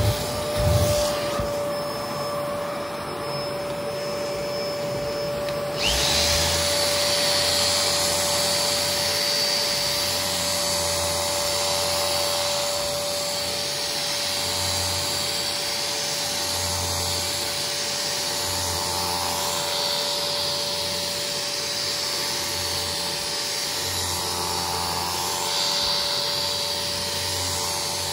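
Kärcher carpet-cleaning machine's suction motor running with a steady whine. About six seconds in the suction noise gets louder and fuller, with a low pulse repeating roughly every two seconds.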